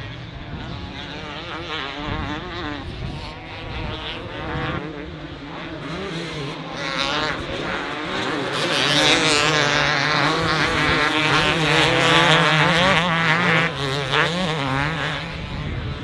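Several two-stroke motocross bikes racing, their engines revving up and down in pitch as they accelerate and shift. The sound builds from about halfway through, is loudest a few seconds before the end, then eases off.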